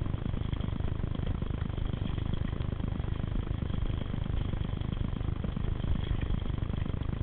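Steady low rumble and rattle of mountain bikes rolling down a dirt forest singletrack, with wind buffeting the camera's microphone.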